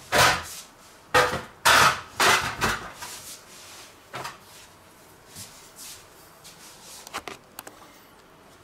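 Kitchen drawer handling and utensil noise while a meat fork is fetched: several loud short knocks and clatters in the first three seconds, one more about four seconds in, then a few sharp clicks near the end.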